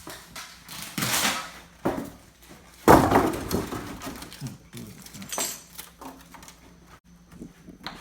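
Knocks and scrapes from a refrigerator being shifted about on a tiled floor, with one loud bump about three seconds in.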